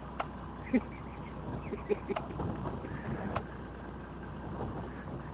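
Jeep engine idling low and steady, with a few sharp clicks and knocks, the loudest a little under a second in.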